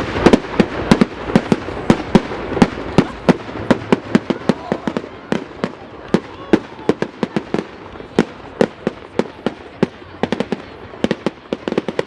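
Fireworks going off: an irregular string of sharp bangs and cracks, several a second, with a quicker flurry of cracks about ten seconds in.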